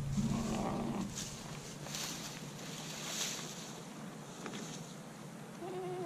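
Goats bleating at a pasture fence: a short, low call at the start and a higher, steady bleat near the end.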